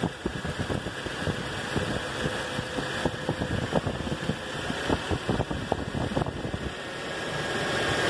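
2012 Toyota Hilux VVT-i gasoline engine idling unevenly, with an irregular beat. The roughness is a misfire, which the mechanic suspects comes from a bad wiring splice at the ignition coil. The engine gets louder near the end.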